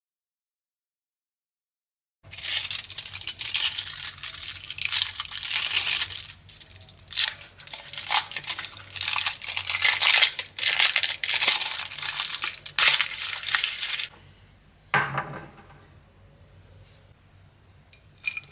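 Gold foil wrapper of a dark chocolate bar crinkling and tearing as it is unwrapped by hand, in loud uneven bursts that start about two seconds in and stop about four seconds before the end. A single dull knock follows.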